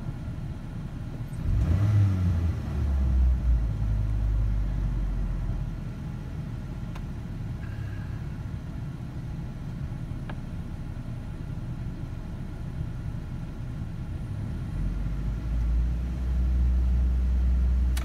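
Ford Ranger engine heard from inside the cab, held at a high idle near 2000 RPM with the HVAC on. It swells briefly about two seconds in, like a throttle jab, then settles back, and the low rumble builds again near the end. The owner takes the hung idle for a throttle position sensor or idle air control fault.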